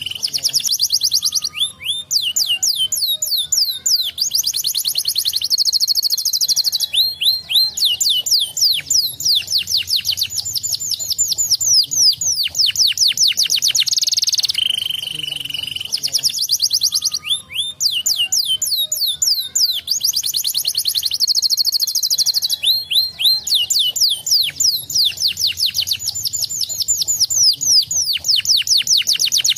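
Domestic canary singing a long, high-pitched song of fast trills and rapid rolling notes in phrases with brief pauses. The same sequence of phrases comes round again about halfway through.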